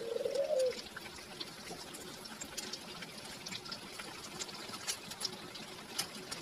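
Battered meat fritters deep-frying in hot oil in a wok: steady sizzling with many small pops and crackles. A dove coos once in the first second.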